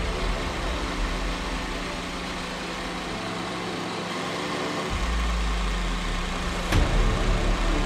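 Belt-driven pillar drill running steadily at about 3000 rpm, its spinning bolt pressed against a steel ball to friction-weld it: a constant motor hum with a grinding rumble that swells about five seconds in, and a sharp knock near the end.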